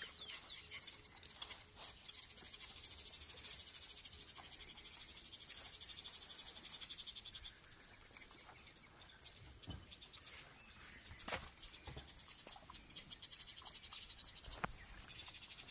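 Insects trilling in a rapid, even pulse over a steady high whine, strong for the first half, dropping away midway and building again near the end. A few short chirps are scattered through it.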